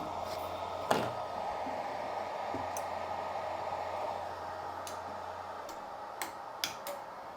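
Hot air rework station blowing steadily onto a motherboard CPU to melt its solder, with a low hum that stops about two-thirds of the way through and a few light clicks.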